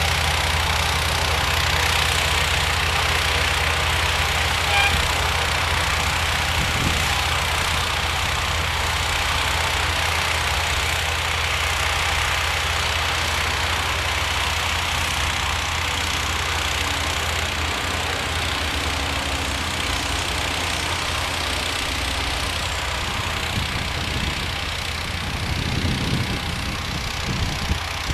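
Engine of a modified John Deere 1032 snowblower, a 16 hp unit, running steadily.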